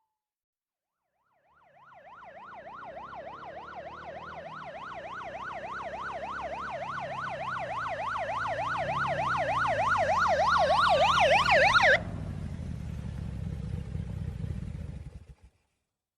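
Police motorcycle siren on a fast yelp, sweeping rapidly up and down about three to four times a second and growing steadily louder. It cuts off suddenly, leaving the motorcycle's engine rumbling for about three seconds before that stops too.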